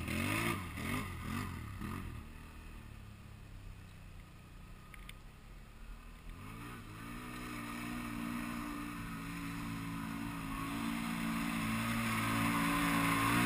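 Can-Am ATV's Rotax V-twin engine revved in about three quick blips, then dropping back quieter for a few seconds. Then it picks up to a steady higher speed and grows louder toward the end.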